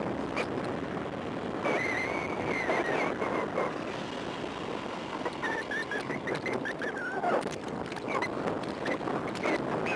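Wind rushing over the microphone of a sunglasses camera on a mountain biker descending a paved road at speed, with light rattles from the bike. A high squeal starts about two seconds in and lasts about a second, then comes again, wavering, from about five to seven seconds: the bicycle brakes squealing as the rider slows for a corner.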